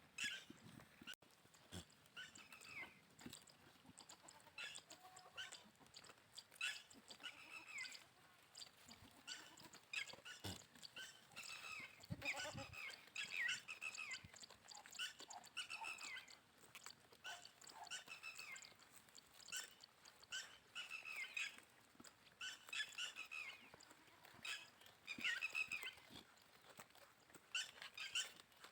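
Goats bleating: a string of short, high, wavering calls one after another, with scattered sharp clicks between them.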